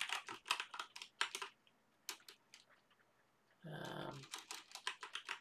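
Typing on a computer keyboard: quick runs of keystrokes, a pause with only a few scattered clicks, then more typing. Just after the middle, a short voice sound of about half a second.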